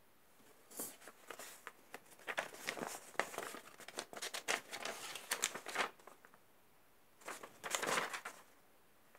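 A folded paper instruction sheet being handled and unfolded, rustling in a long bout of crisp crackles and then a shorter one about seven seconds in.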